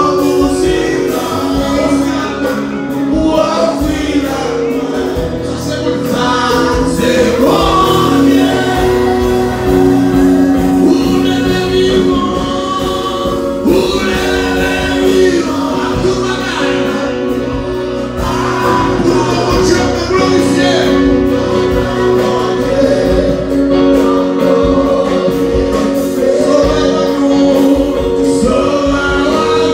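Choir singing a gospel praise song over steady held chords from the accompaniment.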